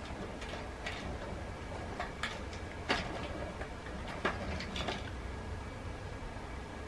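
A cat working dry kibble out of a plastic treat-dispenser feeder: scattered light clicks and rattles of crunchies against hard plastic as it paws at the spouts and picks up the pieces, the loudest click about three seconds in. A low steady hum underneath.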